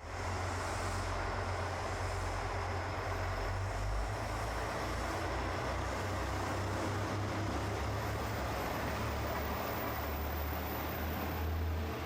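Diesel train running, a steady low engine hum under an even rush of running noise that holds level throughout.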